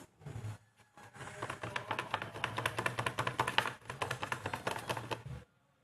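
A stirring stick clicking and tapping rapidly against a plastic container as yellow colouring is mixed into glue for slime, over a low steady hum. The clicking stops shortly before the end.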